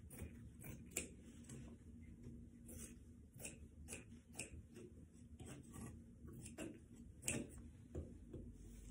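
Scissors snipping through printed material: a run of faint, uneven clicks as the blades close, about one or two a second, a little louder about a second in and near the end.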